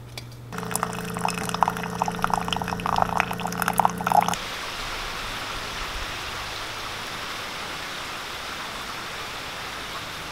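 Hot water pouring into a mug over a tea bag, with a steady hum and crackling, for about four seconds. Then it cuts off abruptly and steady rain falling is heard.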